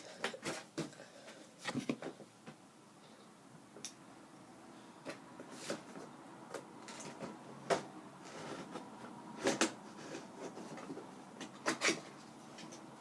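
Scattered clicks, taps and rustles of a boxed Freddy Krueger replica glove being handled and pulled out of its packaging, with about a dozen irregular sharp knocks.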